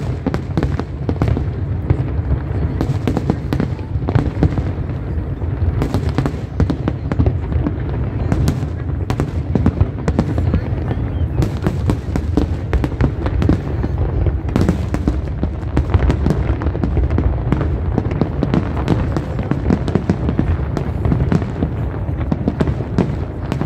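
Aerial firework shells bursting in a loud, unbroken barrage of bangs over a steady low rumble.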